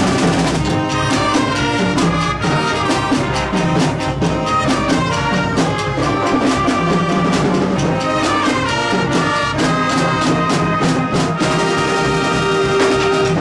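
Instrumental background music with a steady beat, ending on a long held note that cuts off suddenly.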